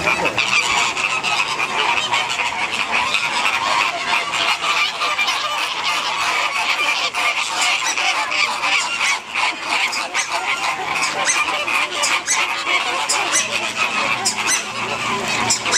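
A large flock of flamingos calling continuously, many goose-like honks overlapping into a dense chatter.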